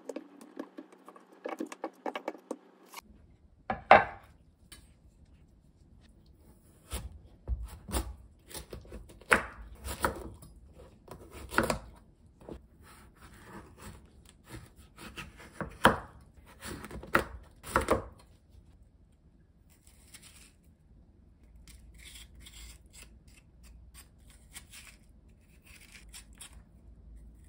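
Large kitchen knife chopping through a whole kabocha squash on a wooden cutting board, giving a series of sharp knocks as the blade goes through the hard rind and hits the board. After these, softer scraping as the seeds are scraped out of a cut quarter.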